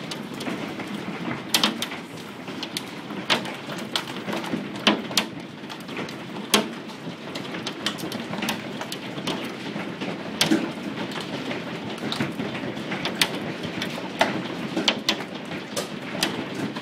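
Large hailstones pelting down in a heavy hailstorm: a steady hiss of falling hail, with frequent sharp, irregular cracks as individual stones strike hard surfaces.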